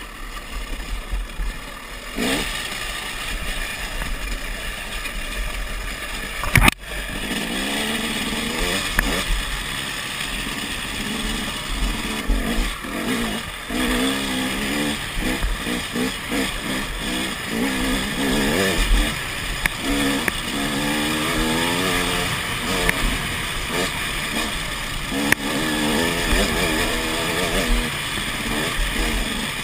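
KTM dirt bike engine being ridden, its pitch rising and falling again and again as the throttle is worked, over a steady low rumble. A single sharp knock about seven seconds in.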